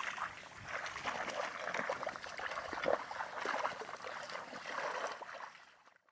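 Shallow muddy water sloshing and trickling as hands grope through it for fish and feet wade in it: a dense run of small irregular splashes that fades out near the end.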